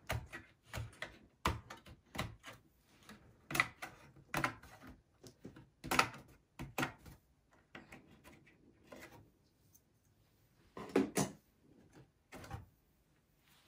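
Memory modules being unlatched and pulled from the motherboard slots of a Dell OptiPlex small-form-factor PC: a string of short plastic clicks and knocks as the slot latches snap open and the sticks come free. A close pair of clicks about eleven seconds in is the loudest.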